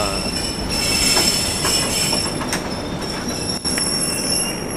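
Passenger train braking into a station: a steady high-pitched squeal of wheels and brakes over the rumble of the rolling train, with a few clicks, easing near the end as the train comes to a stop.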